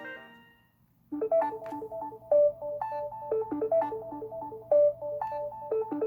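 A Samsung Galaxy S21 Ultra stock ringtone starting about a second in: a lively melody of short, plucked-sounding notes, after the tail of the previous ringtone fades out.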